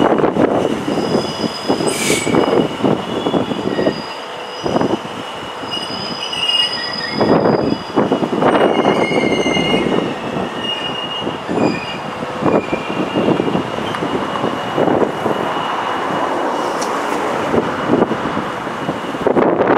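Freight train of box wagons rolling past behind a Class 66 diesel locomotive, with steady high-pitched wheel squeal over a rumble and irregular clanks and knocks from the wagons.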